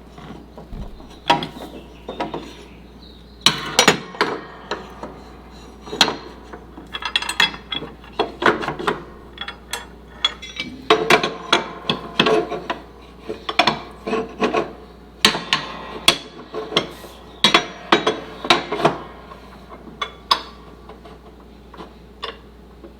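Metal parts of a lawn striping roller's quick-connect hitch knocking, clanking and scraping as they are handled and fitted, in irregular bursts of several knocks with short metallic ringing.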